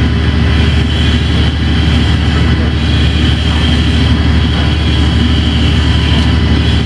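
Loud, steady industrial machinery noise from the booster compressor station: a deep continuous hum with a faint high whine over it.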